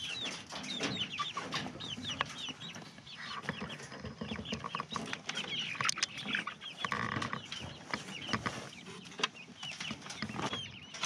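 Young chickens peeping and clucking in their coop: many short high chirps in quick succession, with scattered clicks and knocks.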